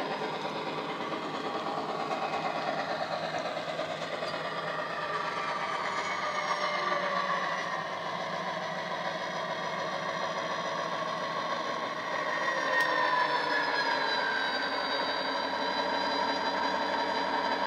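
Model Class 57 diesel locomotive's ESU sound decoder playing a diesel engine sound through an EM1 speaker as the locomotive runs. The engine note falls gradually in pitch, then holds steadier and a little louder for the last few seconds.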